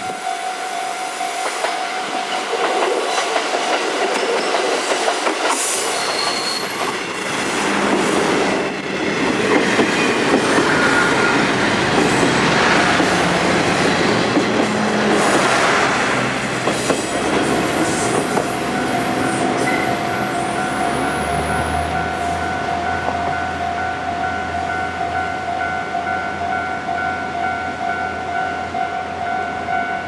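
A level-crossing warning bell rings steadily as KiHa 40 and KiHa 48 diesel railcars pass close by. Their wheels clack over the rail joints, loudest from about 8 to 17 seconds in. From about 21 seconds a low diesel engine hum sets in under the bell.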